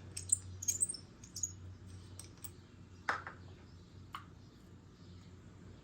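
A few light, scattered clicks and taps from handling small engine parts, the sharpest about three seconds in, over a low steady hum.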